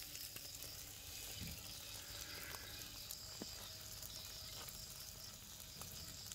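Pangasius catfish grilling in a wire basket over glowing charcoal, sizzling faintly, with scattered small crackles.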